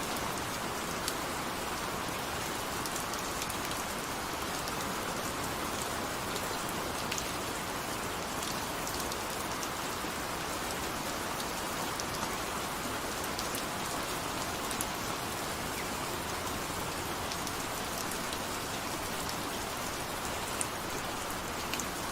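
Steady rain falling on a surface: a dense, even wash of patter with scattered sharper single drop hits.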